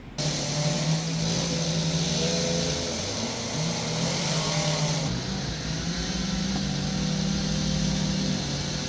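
Gasoline chainsaw engines running, the pitch rising and falling as the throttle is worked while carving; the sound cuts in suddenly and shifts about five seconds in.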